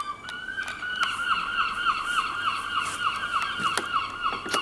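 An animal calling in a fast run of short, hooked, pitched notes, about five a second, with a few sharp clicks among them.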